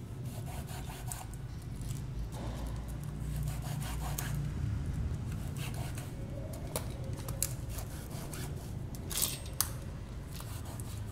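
Hand handling noise: pink cloth rubbed and twisted around the end of a plastic pipe, with scattered light clicks and knocks as the pipe and tools touch the concrete floor, the sharpest a pair of clicks about nine seconds in. A steady low rumble lies underneath.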